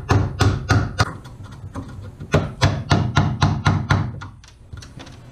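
Hammer driving a wood chisel into a boat's wooden stem, about three sharp blows a second, chopping out a section of the stem. The blows ease off briefly near two seconds in, come hard again, and stop about four seconds in.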